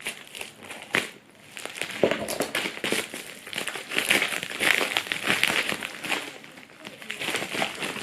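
A small postal parcel's packaging being opened and handled: crinkling and rustling with many small clicks. It gets busier about two seconds in.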